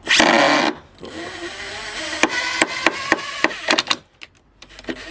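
Makita DTD154 brushless impact driver working a screw into wood: a short loud burst, then a steadier run of about three seconds broken by sharp clicks. The bit is not the right size for the screw and slips.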